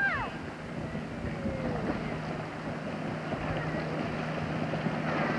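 Motorboat engine running steadily at speed while towing a water skier, heard across open water with wind on the microphone.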